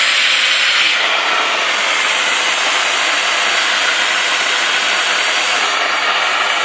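Vacuum cleaner running with a steady, even whoosh of its motor and airflow.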